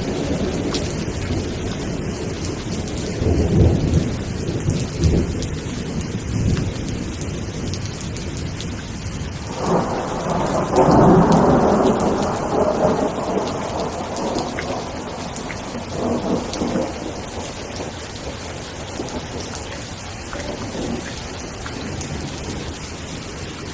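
Steady rainfall with rolling thunder: low rumbles a few seconds in, then a louder thunderclap about ten seconds in that rolls away over several seconds, with fainter rumbles after.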